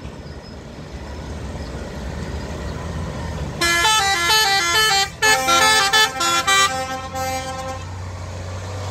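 A Hino 500 tractor unit's diesel engine rumbling, growing louder near the end. About three and a half seconds in, its multi-tone musical horn (a telolet horn) plays a quick stepping tune of many short notes for about four seconds.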